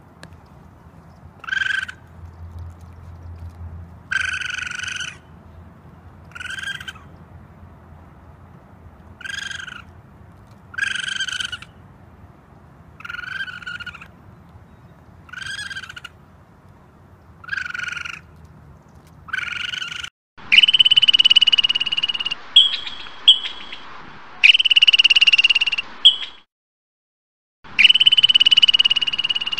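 Repeated short animal calls, one about every second and a half. About two-thirds of the way in they give way to louder, longer calls held on one steady high pitch, with brief breaks between them.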